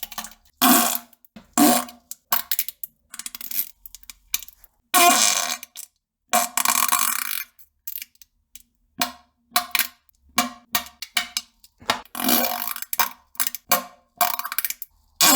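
A rapid string of fart sounds: many short bursts broken by brief silences, with longer drawn-out ones about five, seven and twelve seconds in.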